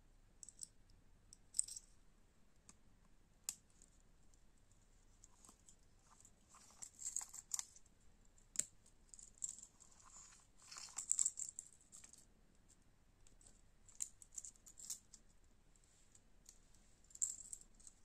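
Small metal keychain parts being handled: scattered light clicks and rattles of a split ring, clip and badge reel, with denser clusters about seven and eleven seconds in.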